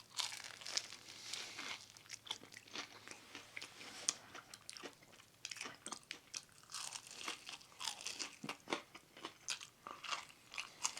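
A person chewing and biting into chicken wings close to the microphone, with irregular crunching and smacking throughout.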